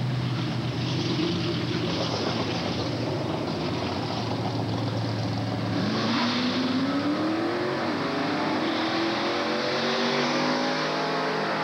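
Drag-racing car engines running at the line, then, about six seconds in, launching down the strip, the engine note climbing steadily as they accelerate.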